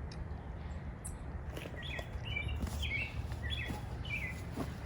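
A songbird giving a quick series of short chirps, starting about a second and a half in and stopping a little before the end, over a steady low background rumble.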